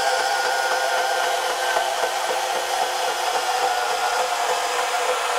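Milwaukee M12 FUEL brushless compact band saw running steadily under load as its 12/14 TPI blade cuts through a larger piece of metal, with very little bog.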